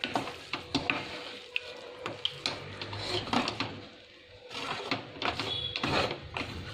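A spatula scraping and knocking against a non-stick pan as cooked fried rice is stirred and tossed: irregular scrapes and taps, with a short lull about four seconds in.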